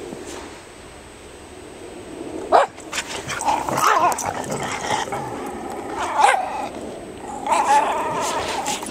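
Two dogs, a Polish Lowland Sheepdog and a schnauzer, playing in deep snow. After a quieter start, a sharp bark comes about two and a half seconds in, followed by several bouts of barking and growling.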